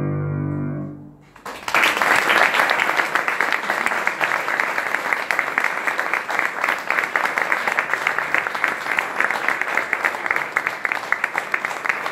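The held final note of a sung piece with piano accompaniment fades out, and about a second and a half in an audience breaks into steady applause, with one pair of hands clapping close by.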